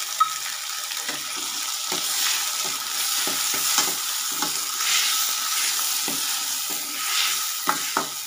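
Chopped tomatoes, shallots and garlic sizzling in hot oil in a stainless-steel kadai, with a steel ladle stirring and scraping against the pan in irregular strokes. There is a sharp ladle clink just after the start and two more near the end.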